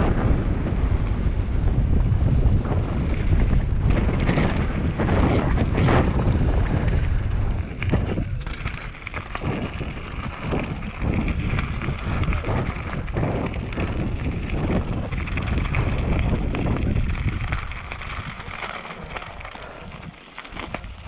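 Wind buffeting an action camera's microphone at riding speed, with mountain bike tyres rumbling and crunching over gravel. The rush eases over the last few seconds as the bike slows.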